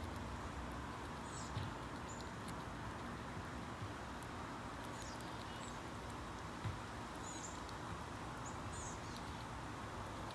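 Steady outdoor background hiss with a few short, high chirps from small birds scattered through, and a couple of soft low thumps.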